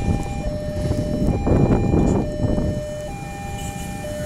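Railway level-crossing warning alarm sounding a steady two-tone signal, alternating high and low about once a second, warning of an approaching train. A louder rumbling noise swells and fades about halfway through.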